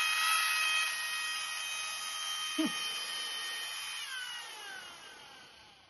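Kolektor COR Liquishot cordless pressure sprayer running: the battery pump's steady high whine with the hiss of the water jet. About four seconds in the whine falls in pitch and the sound fades away.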